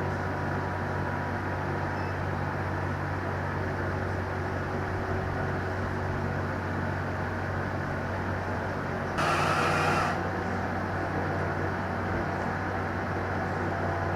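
Crane truck's engine running steadily, with a brief, louder burst of noise about nine seconds in.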